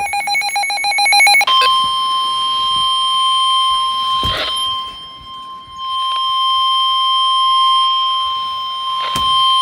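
NOAA Weather Radio's single-tone warning alarm (about 1050 Hz), a steady high beep held unbroken for about eight seconds; it signals that a warning message is about to be read. During the first second and a half a buzzing, fast-pulsing data burst sounds, the end of the digital SAME alert header.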